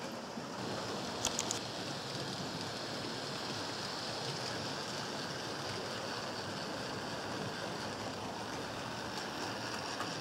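HO-scale model trains running on a layout: a steady whirring rush of small electric motors and metal wheels rolling on the rails, with three quick sharp clicks a little over a second in.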